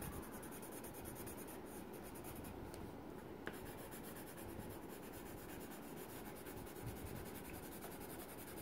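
Yellow coloured pencil shading on paper: a steady, continuous scratching of the pencil lead rubbing back and forth over the sheet.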